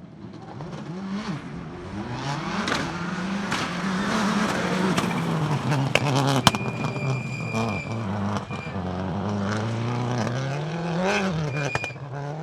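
Subaru Impreza S7 WRC rally car's turbocharged flat-four engine revving up and down repeatedly, with many sharp pops and cracks from its anti-lag system, the loudest about halfway through.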